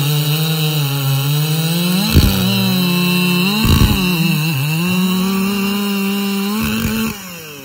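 Dolmar 7900 79 cc two-stroke chainsaw at full throttle cutting a round off a thick log. Its engine note sags and recovers twice under load. Near the end the throttle is released as the cut finishes, and the revs fall away.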